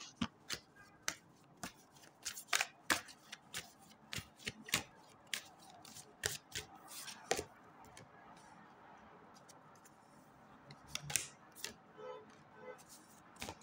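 Tarot cards being shuffled and handled: a run of short, sharp card clicks and snaps, then a lull, then a few more clicks as a card is laid down on the cloth near the end.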